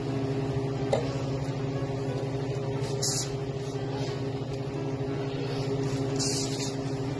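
Steady low mechanical hum of a running motor or fan, with short soft hisses about three and six seconds in.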